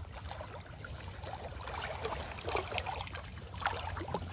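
Retriever dog swimming with a duck in its mouth, water sloshing and trickling around it; about halfway through the splashes get sharper and louder as it reaches the reed edge and pushes through the shallows.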